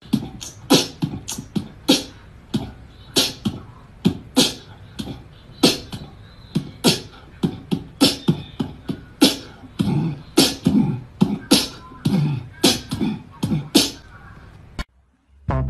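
Beatboxing: quick vocal percussion of sharp clicks and hits mixed with low thumps, several a second, stopping abruptly near the end.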